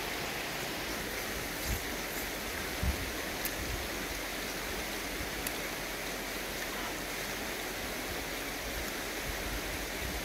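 Steady rushing of a shallow river flowing over stones, with a few faint short clicks in the first few seconds.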